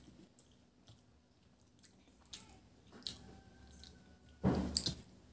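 Close-up eating sounds: soft chewing and wet mouth clicks, with the squish of fingers mixing rice and mustard fish curry on a plate. A louder, short thump-like burst comes about four and a half seconds in.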